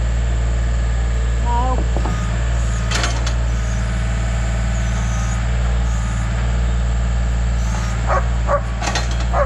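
Compact diesel tractor engine running at a steady idle, with a dog barking several times near the end and a single knock partway through.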